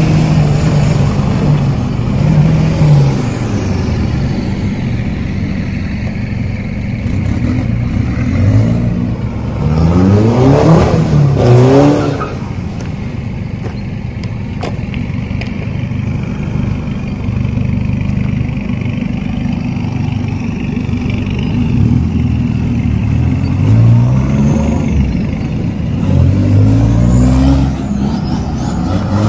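Diesel pickup truck engines running and being revved hard several times. A long rising rev comes about ten seconds in, and more quick revs rise and fall near the end.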